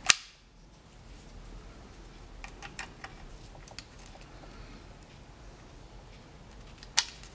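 Plastic clicks from a hand working a Sony Handycam camcorder's side controls and connector: one sharp click at the start, a few lighter clicks around the middle, and another sharp click near the end.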